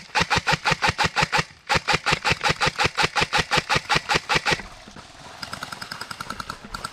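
Airsoft rifle firing on full-auto in two long rapid bursts, the first about a second and a half, the second about three seconds. After a short gap, fainter and faster rapid clicking follows near the end.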